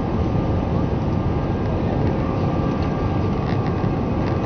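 Steady cabin noise inside an Airbus A319-111 in the climb: a low, even rush of airflow and its CFM56 turbofan engines at climb power, with faint steady whining tones over it.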